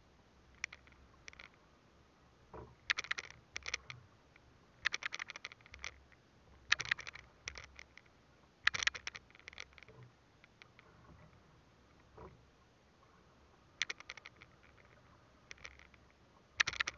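A fishing handline hauled in hand over hand with a fish on it, making short bursts of rapid rasping clicks every second or two, with pauses between.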